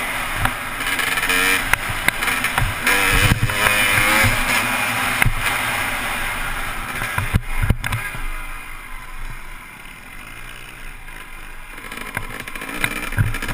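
Dirt bike engine revving hard under throttle, its pitch rising and falling through the gears, with wind rushing over a helmet-mounted microphone. A little past halfway the engine eases off and goes quieter, then picks up again near the end.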